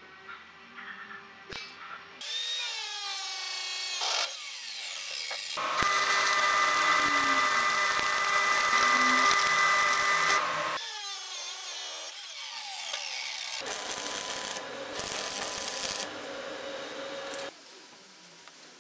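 Metalworking power tools at work on sheet steel: a motor whining up and down in pitch, then a steady high-pitched run of several seconds, then a spell of harsh, broken hissing near the end.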